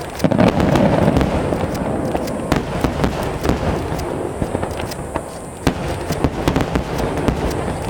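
Aerial fireworks going off: a heavy boom about a third of a second in, then a dense run of sharp cracks and pops over continuing rumbling detonations.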